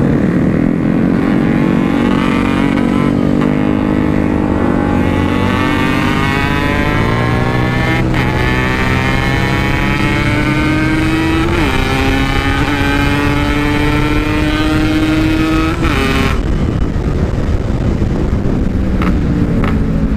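Yamaha RX-King two-stroke single-cylinder motorcycle engine with a stock-style aftermarket exhaust, accelerating hard through the gears. The pitch climbs, drops at a shift and climbs again twice, then falls off as the throttle closes near the end.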